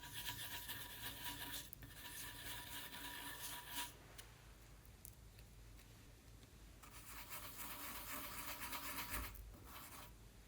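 Slime being worked and mixed, a crackling, scraping noise in two spells: the first lasting about four seconds from the start, the second beginning about seven seconds in and stopping near the end.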